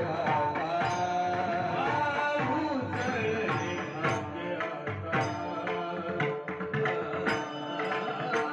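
Marathi Varkari kirtan music: male voices sing a devotional melody to a pakhawaj drum and small brass hand cymbals (taal). From about three seconds in, the cymbals strike steadily, ringing over a held sung note.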